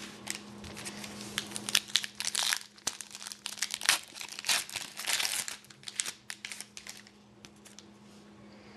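Plastic wrapper of a hockey card pack crinkling and tearing as the pack is opened, in quick irregular crackles that die away about seven seconds in. A steady low hum runs underneath.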